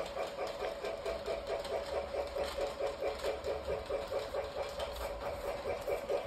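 Battery-powered toy Christmas train running around its track: a steady, rhythmic mechanical chugging of about four pulses a second from its small motor and wheels.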